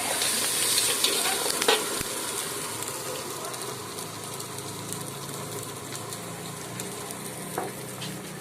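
Fried rice sizzling in a hot wok, with a few sharp scrapes and knocks of the spatula against the pan. The sizzle is loudest for the first two seconds, then dies down, and a low steady hum sits underneath it.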